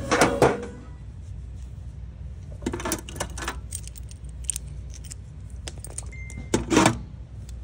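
Small metal tools and bike parts rattling and clinking as they are rummaged through in a metal toolbox. The clinking comes in several bursts, loudest right at the start and again about a second before the end.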